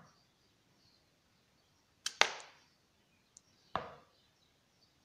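Hand-held metal cherry pitter punching the stones out of white cherries: a few sharp clicks, the loudest a double click about two seconds in and another just before four seconds.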